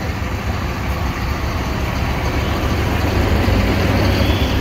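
Steady road-traffic noise with a low engine rumble, growing slightly louder near the end.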